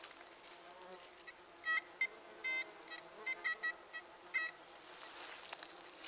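Metal detector giving a series of short, high-pitched beeps at an uneven pace, the strong high tone of a target read as an imperial-era coin, over a steady faint buzz of insects.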